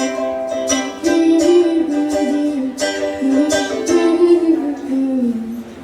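Ukulele strummed in chords, an instrumental passage between sung lines of a song.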